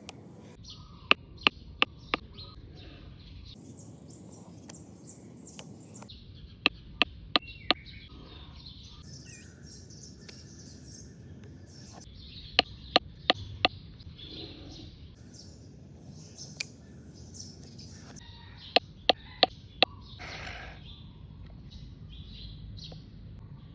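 Four sharp taps in quick succession, repeated four times about six seconds apart, over birds chirping.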